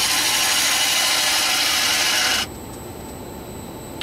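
Gouge cutting the inside of an Afghan pine box turning on a Laguna Revo 18/36 wood lathe: a steady hissing cut that stops abruptly about two and a half seconds in, leaving only the lathe's quieter running.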